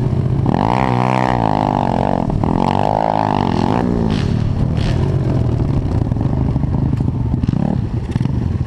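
Pit bike engine heard onboard, revving hard twice with the pitch rising and falling, then dropping to a lower, steadier run as the bike rolls off and slows.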